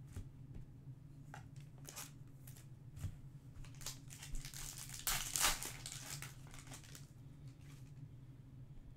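A Topps Chrome Match Attax card pack wrapper crinkling and tearing as it is handled and opened, with scattered small clicks of cards and packs being handled. The loudest crinkle comes about five seconds in, over a low steady hum.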